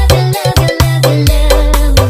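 Background dance music with a steady beat and heavy bass line.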